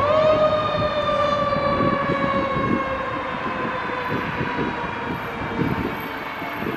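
Fire engine siren: the pitch rises quickly, then falls slowly over several seconds as it winds down, over a low rumble.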